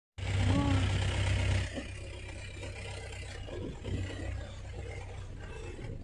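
Off-road jeep's engine running steadily, heard from inside the cabin as it drives through a shallow stream crossing, with a louder hiss over the first second and a half.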